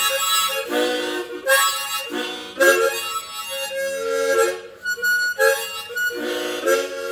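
Harmonica playing an instrumental break in a song, in short phrases with brief gaps between them.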